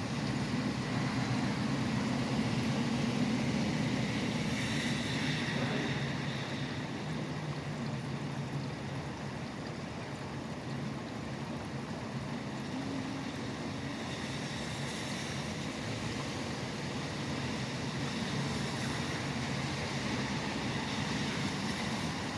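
Steady rain with traffic on a nearby wet highway, a low rumble of engines under a constant hiss of water and tyres. A louder pass swells over the first few seconds and eases off, with another brief whoosh in the middle.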